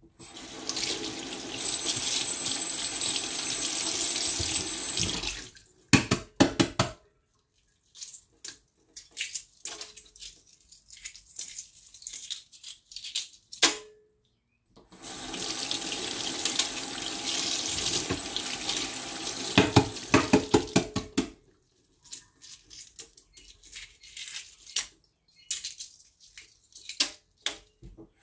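Kitchen faucet running into a stainless steel sink in two spells of about five and seven seconds. Between and after them come irregular crackling and clicking of eggshell being peeled off hard-boiled eggs.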